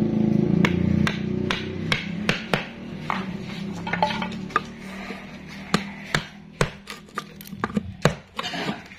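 Sharp, irregular knocks of wood being struck, as from hammer blows on a chisel cutting a joint in hardwood. A low motor hum fades away in the first few seconds.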